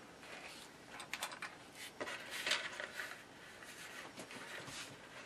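Thin plastic pieces handled on a cardboard-covered workbench: light clicks, taps and short scraping rustles, the loudest about two and a half seconds in.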